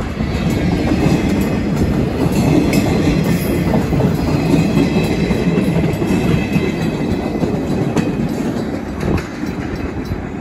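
Empty flatcars of a freight train rolling past on steel wheels, clattering over the rails and the road crossing. The noise eases a little near the end as the last cars go by.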